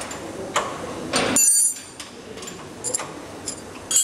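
Several sharp metal-on-metal clinks and knocks from hand tools and metal parts during work on an electric motor's chain drive, the loudest a ringing clink about a second in, then a few lighter clinks near the end.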